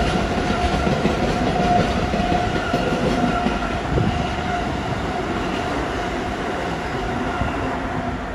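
Container wagons of a JR Freight freight train rolling past, their wheels clattering over the rail joints. A steady whine runs over the rumble, which grows slightly fainter toward the end.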